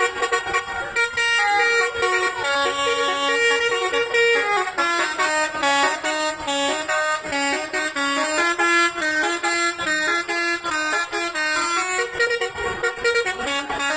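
A bus's telolet horn, a multi-tone air horn, playing a quick tune of stepped notes. The notes get shorter and faster about five seconds in.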